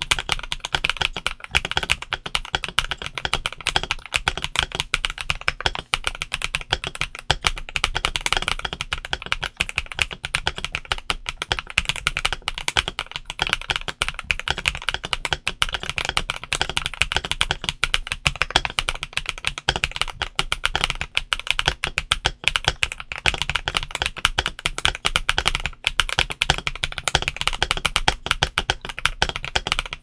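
Steady, fast typing on a stock Keydous NJ98 mechanical keyboard with Kailh Taro Ice Cream Pro switches and PBT OEM-profile keycaps: a dense, unbroken run of key presses.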